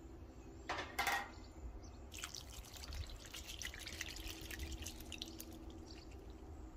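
Pepperoncini brine poured from a glass jar into a cast iron Dutch oven, trickling and splashing faintly into the broth around the ribs. A short knock comes about a second in.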